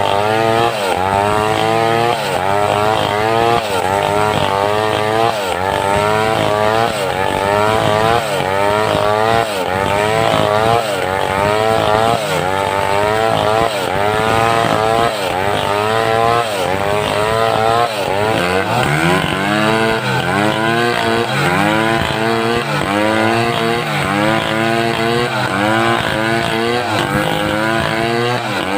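Homemade two-stroke chainsaw running under load while ripping mindi wood lengthwise. Its engine pitch rises and falls about once or twice a second as the chain bites. About two-thirds of the way through it bogs down lower, then picks back up.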